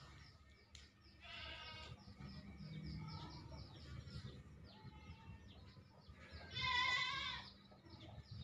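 Two wavering animal cries: a fainter one about a second in and a louder one, about a second long, near the end, over faint rapid high chirping.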